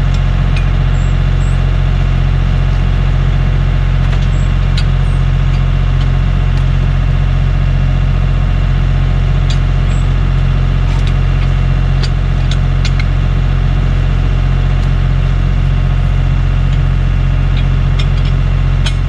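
An engine idling steadily, most likely the one powering the log splitter, with a few short knocks of wood being handled over it.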